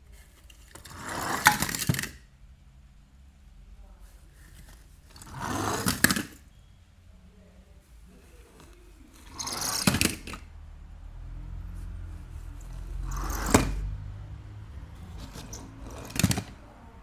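Die-cast toy race cars rolling one at a time down a corrugated plastic board. Five times the rattle of the small wheels swells and ends in a sharp clack.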